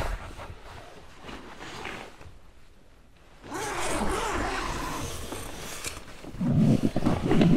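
A tent's nylon door zipper being pulled, starting about halfway through, with rustling of tent fabric and clothing as a person moves inside the tent.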